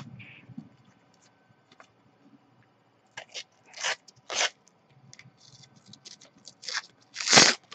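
A foil sticker packet being torn open by hand: several short tearing and crinkling noises starting about three seconds in, the loudest near the end.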